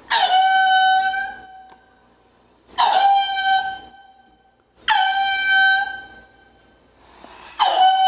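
A high-pitched animal call repeated four times, about every two and a half seconds: each starts sharply, drops quickly to a steady note held for about a second, then fades.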